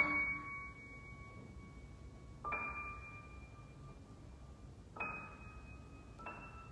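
Grand piano playing four single high notes a couple of seconds apart, the first the loudest, each struck and left to ring and fade.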